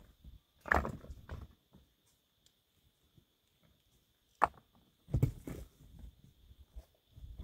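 Scattered scuffs and knocks of footsteps and shifting stones on rocky ground, with a single sharp click about four and a half seconds in.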